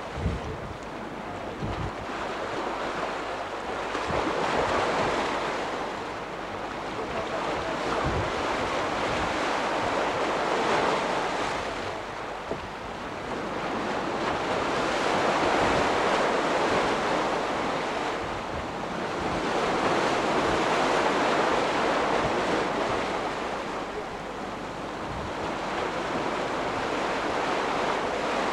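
Small sea waves washing against shore rocks, the surge swelling and fading about every five or six seconds, with wind buffeting the microphone.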